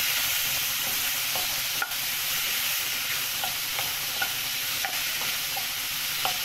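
Sliced bell peppers, carrots and mushrooms sizzling in a hot pan as they are stir-fried, a steady hiss broken by light knocks of the utensil every half second or so.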